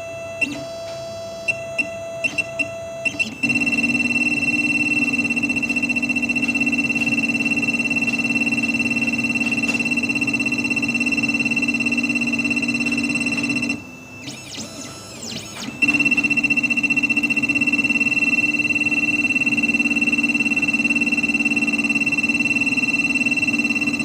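Xhorse Condor XP005 key machine decoding a key with its probe: a few clicks, then its motors run with a steady high whine. The whine breaks off for a couple of seconds past the middle, with short sweeping tones, then runs steadily again.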